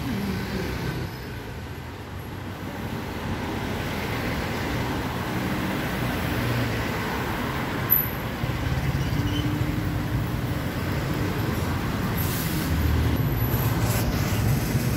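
Urban street traffic: cars and taxis passing close by, engines running and tyres on the road in a steady rumble. A short sharp click about eight seconds in.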